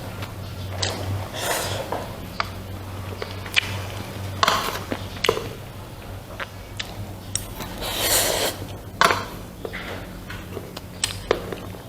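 Eating sounds: a spoon or utensil clinking and scraping against a bowl or plate, with sharp clicks throughout and a few longer hissy sounds over a faint low hum.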